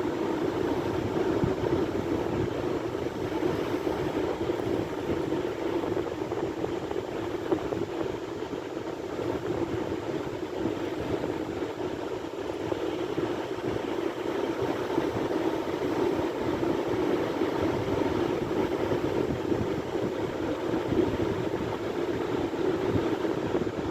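Sea surf: a steady rushing of waves that holds an even level throughout, with no distinct swells.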